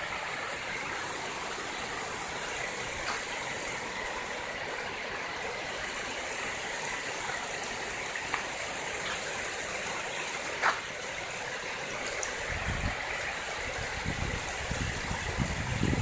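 Shallow river water running over rocks in small rapids, a steady rushing. A single sharp click comes about ten seconds in, and low rumbling joins over the last few seconds.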